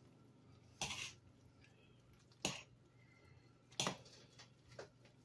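A metal spoon knocking and scraping against the inside of a stainless steel pot while thick chicken and dumplings are stirred: three short, faint clinks spread over a few seconds, with a fainter fourth near the end.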